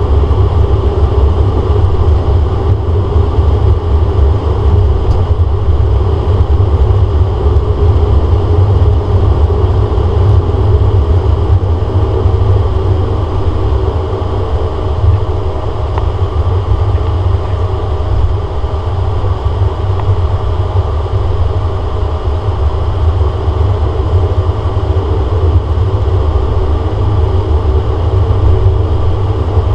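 Cabin noise of a DHC-8 Q400 taxiing, its Pratt & Whitney PW150A turboprops and six-blade propellers running at low taxi power: a loud, steady low drone with a few faint steady tones above it, heard from a window seat beside the propeller.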